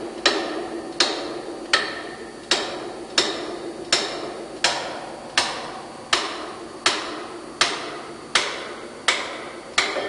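Hammer striking a spanner again and again, about one blow every three-quarters of a second, each a sharp metallic clank with a short ring. The spanner is being hammered tight on the lower lock nut of a marine diesel engine's chain tightener bolt.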